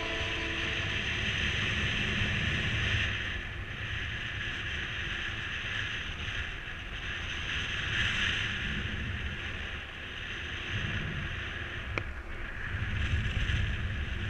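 Wind rushing over the microphone in flight under a paraglider wing, rising and falling in gusts with a low rumble and a hiss, in a strong wind; a single click about twelve seconds in.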